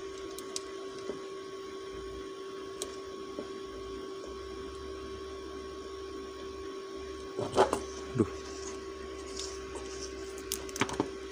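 Steady electrical hum with a constant mid-pitched tone, while a multimeter's probes are placed on electrolytic capacitor terminals with a few faint clicks and taps. A brief louder sound comes about two-thirds of the way through.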